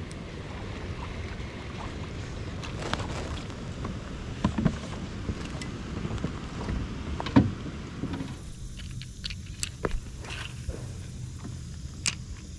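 Wind buffeting the microphone, with a few knocks and thumps from handling a fish and gear in a plastic fishing kayak. About eight seconds in the wind drops away, leaving scattered light clicks from the rod and baitcasting reel being handled.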